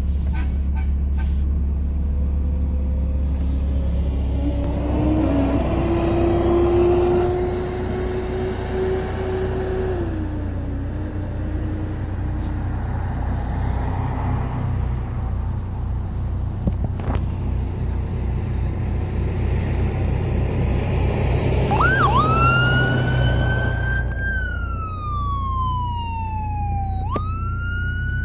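Emergency vehicle sirens over a low engine and road rumble. A fainter siren tone rises, holds and falls in the first half. About three-quarters of the way through, a loud electronic wail siren starts, climbing quickly and then sliding slowly down before climbing again near the end.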